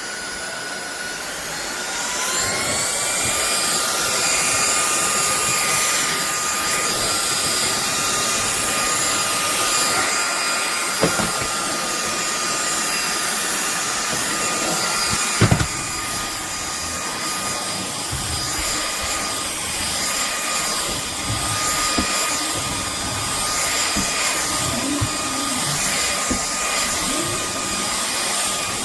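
Cordless stick vacuum cleaner running as it is pushed over the floor, with a steady high motor whine that rises in pitch over the first couple of seconds and then holds. Two short knocks come about a third of the way and halfway in.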